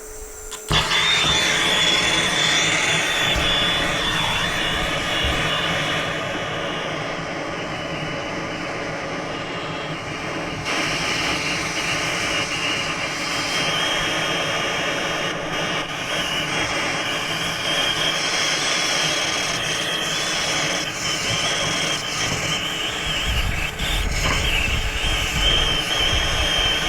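Brazing torch flame running with a steady roaring hiss and a faint high whistle, starting abruptly just under a second in.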